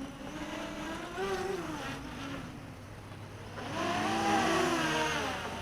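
Mini quadcopter's brushless motors and propellers whining, the pitch rising and falling as the flight controller works them, swelling louder about two-thirds of the way through. The throttle is all the way off, so the motors are only spinning at low idle.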